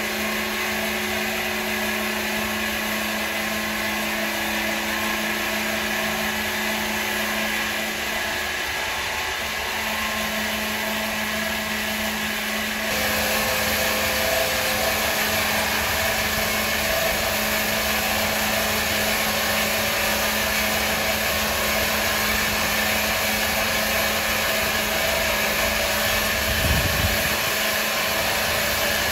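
Electric wood saw running steadily with a motor whine and hum; the sound steps up and grows louder about halfway through.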